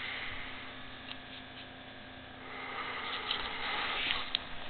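Steady low electrical hum, with faint rustling and a few small clicks from the handheld camera being moved about, growing louder in the second half.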